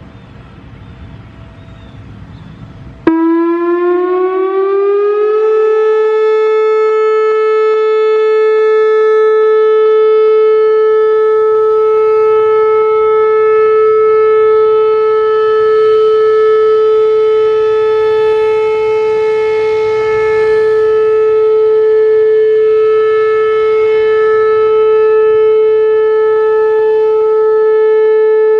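Whelen WPS-4008 rotating electronic siren, which has broken drivers, sounding its steady Alert tone. About three seconds in it comes on suddenly, slides up in pitch for a couple of seconds, then holds one loud, steady note with many overtones, its level rising and falling slightly.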